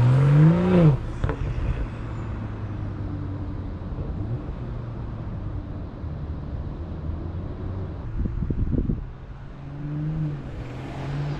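BMW M340i's B58 turbocharged 3.0-litre inline-six, with a catted downpipe and otherwise stock exhaust, revving hard as the car pulls away. The rising engine note cuts off about a second in, then settles into a steady, fading drone as the car moves off, with a short burst of crackles near eight seconds and the note rising again near the end.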